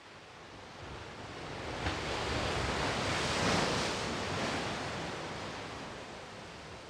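Ocean waves: one surge of surf that swells to a peak about halfway through and then slowly ebbs away.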